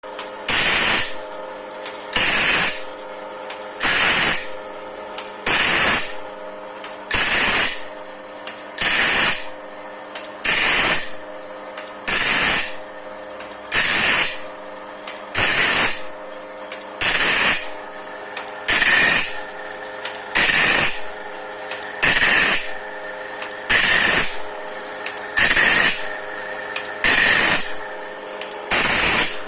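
Band saw blade sharpening machine running through its automatic cycle: a steady motor hum, with a short loud grinding pass about every 1.7 seconds as the wheel dresses one tooth after another, and a light click between passes.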